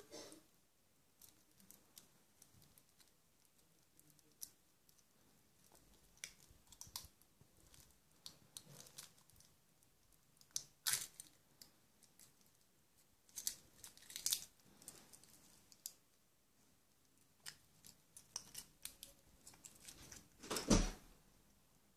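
Foil wrapper of a Kinder Surprise chocolate egg crinkling and tearing in scattered short bursts as it is peeled off by hand, then the chocolate shell being split open; a louder knock comes near the end.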